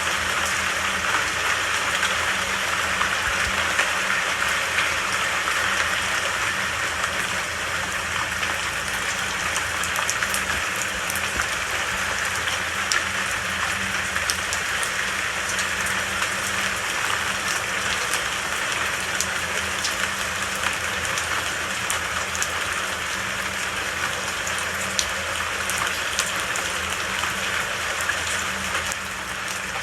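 Steady rain falling, an even hiss with scattered sharp drop ticks and no thunder.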